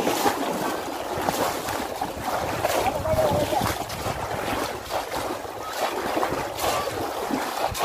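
Shallow river water splashing again and again as bamboo polo fish traps are thrust down into it and people wade through, with sharp splashes every second or so over a steady wash of water noise.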